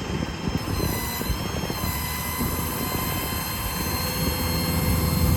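Auto Crane HC8X hydraulic service crane working, a steady high whine that shifts in pitch about a second in, over the low rumble of the 6.7 Power Stroke diesel.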